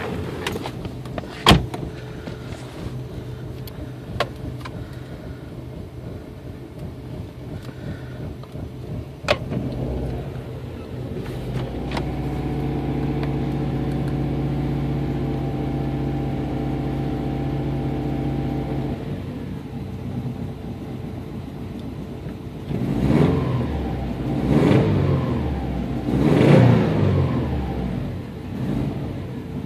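2002 Subaru Impreza WRX's turbocharged flat-four engine running with a rough idle, typical of a misfire: uneven at first, then running steadily for several seconds, then revved up and back down three times near the end.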